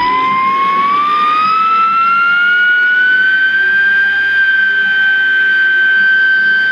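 Small 3D-printed electric-motor siren winding up: a single wailing tone rises in pitch for about three and a half seconds as the rotor speeds up, then holds steady and loud.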